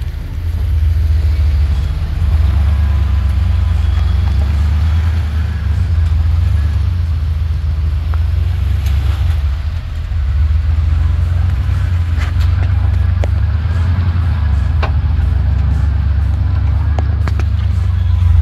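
Off-road vehicle engine running with a steady low rumble, with a few sharp clicks and knocks in the second half.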